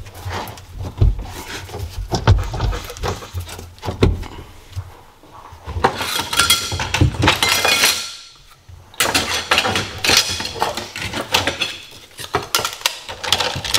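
Metal hand tools and parts clinking and rattling, with handling knocks, as hands work on a jet ski engine's motor mount bolts. The clinking comes in two busy stretches in the second half, with a short pause between them.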